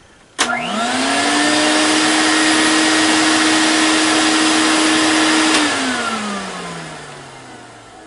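Electrolux Grand Marquise 1521 canister vacuum cleaner, power nozzle off, switched on with a click. Its motor spins up quickly to a steady whine over a loud rush of air and runs about five seconds. It is then switched off and winds down, its pitch falling as it fades.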